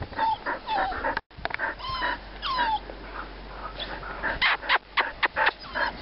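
Small dogs whining and yipping in play, short high calls that rise and fall, with a quick run of sharp yaps about four and a half seconds in.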